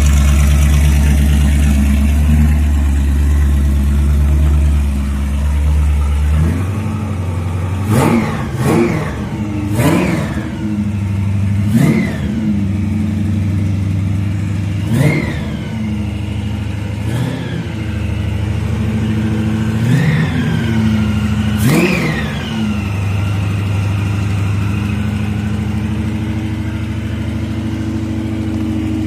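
Roots-supercharged engine of a 1969 Dodge Charger idling, then blipped on the throttle about eight times, each rev rising and falling quickly, before settling back to a steady idle. It is a newly built engine on its first runs, and it answers the throttle very sharply.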